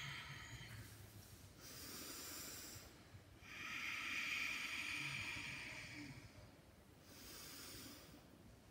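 A woman breathing deeply and slowly close to the microphone, catching her breath after hard cardio: slow breaths in and out, each lasting one to three seconds.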